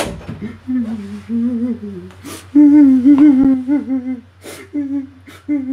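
A door shuts sharply, then a man cries in long wavering moaning wails with his mouth nearly closed, twice, with short sharp breath-like sounds between and a few shorter sobs near the end.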